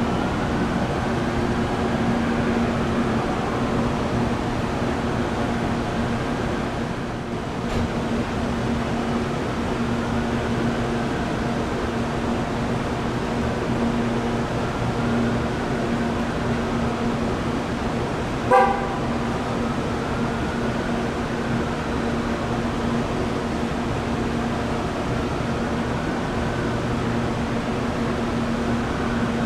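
Steady mechanical drone with a strong low hum and faint higher tones that slowly rise and fall. About two-thirds of the way through comes one short horn-like toot.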